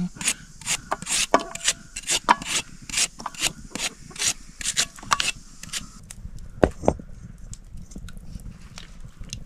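Repeated short scraping strokes on wood, about three a second, thinning out and fading after about five seconds, with one sharper knock about two-thirds of the way through.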